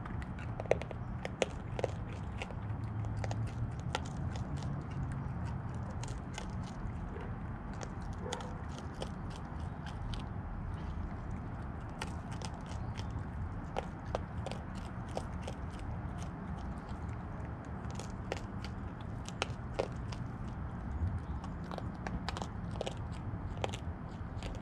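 Raccoon chewing dry pet-food kibble: a steady run of sharp crunches and clicks throughout, over a steady low hum.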